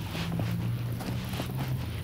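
Footsteps of a person walking through tall dry grass and weeds, each step a brushing crunch, over a steady low hum.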